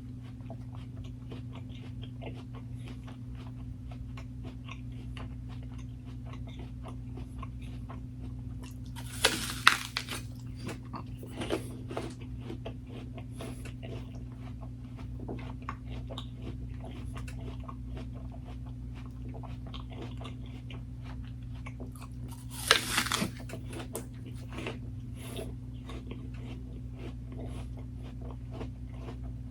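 Close-miked chewing of food, with many small wet mouth clicks and two louder crunching bites, about nine seconds in and about twenty-three seconds in, over a steady low hum.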